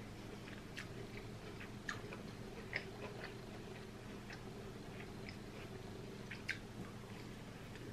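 Close-miked mouth sounds of someone chewing corn on the cob coated in seafood-boil sauce: scattered wet smacks and clicks, two sharper ones about a third of the way in and near the end, over a steady low hum.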